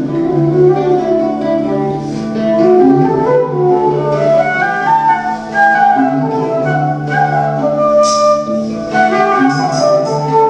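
Medieval-style folk music played live: a flute carries a moving melody over a steady low drone.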